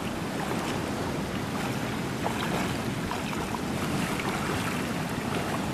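Steady wash of shallow seawater and surf with wind on the microphone, and light sloshing of legs wading through the water.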